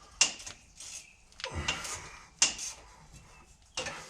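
Hand tools clanking on the rear axle's U-bolt nut as a wrench and socket are fitted to a stubborn nut: four sharp metallic knocks about a second apart, each with a brief ring.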